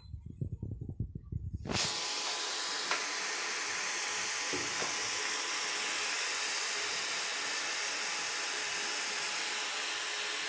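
Onion-tomato masala sizzling in hot mustard oil in the pan: a steady hiss that starts abruptly about two seconds in, after some low rumbling bumps.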